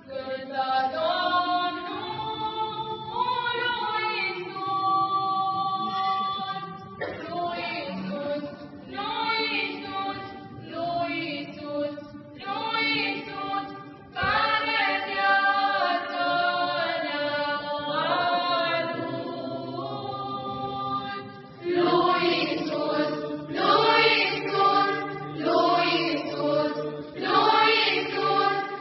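Youth and children's choir singing an unaccompanied Orthodox Easter hymn for the Resurrection, in phrases with short breaths between them. It grows louder about three-quarters of the way through.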